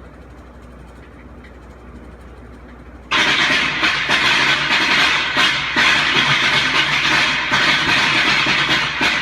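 A faint low hum, then about three seconds in a sudden loud, continuous crackle of rapid bangs, like a long string of firecrackers going off, used to prank someone.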